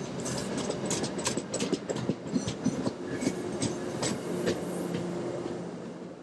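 A train passing, its wheels clacking rapidly and irregularly over the track over a steady rumble and low hum, fading away near the end.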